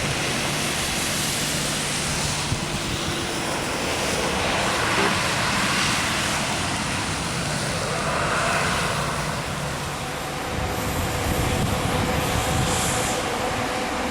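Jet airliner engines, a steady loud rush, with a faint whine of engine tones coming in during the second half.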